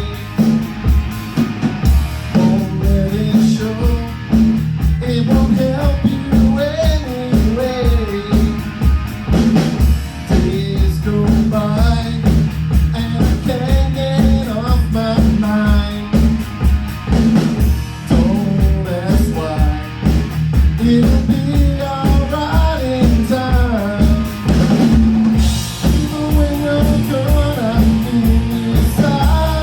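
Rock band playing live: a steady driving drum beat with bass and electric guitars, and a melodic lead line bending in pitch above them.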